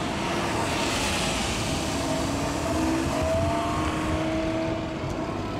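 A car driving past with its engine running, the rush of its passing loudest about a second in, then fading.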